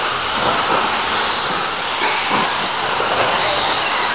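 Several TLR 22 electric 2WD RC buggies racing on an indoor dirt track: a steady, noisy whir of motors, drivetrains and tyres on dirt.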